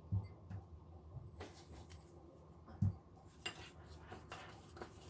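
A spoon scraping and clinking in a ceramic bowl while stirring a thick chili-flake and soy-sauce seasoning, with two dull knocks of the bowl on the counter, one near the start and one about three seconds in.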